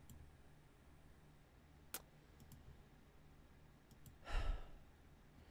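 Quiet room tone with a few computer mouse clicks, then a person's sigh about four and a half seconds in.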